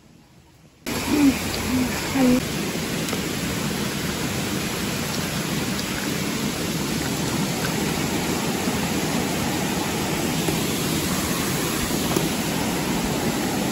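Steady rushing noise that starts abruptly about a second in, with a few short, low hooting notes just after it begins.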